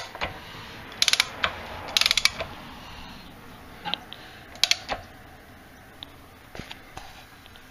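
A few short runs of light mechanical clicking and rattling, the clearest about one and two seconds in and again near the middle, over a faint steady hiss.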